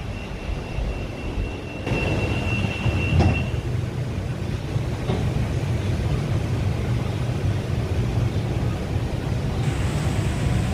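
Cabin sound of a rubber-tyred MRT Yellow Line monorail train: a steady low running rumble, with a thin high tone that stops a few seconds in and a faint rising whine near the end.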